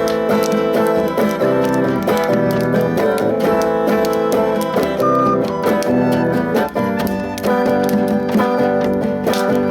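Music led by strummed acoustic guitar, an instrumental stretch with no singing.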